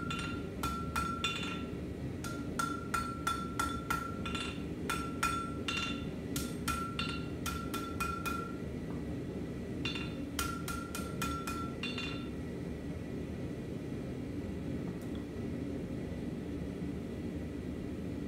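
Hand hammer striking red-hot steel on an anvil, a quick run of blows that each leave a short ring, then a pause and a few more blows before the hammering stops about two-thirds of the way through. The blows are straightening the edge and refining the tip of a forged knife blade. A steady low rumble runs underneath.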